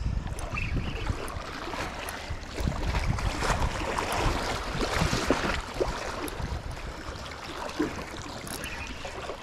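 Sea surf washing in a swelling rush, with wind buffeting the microphone.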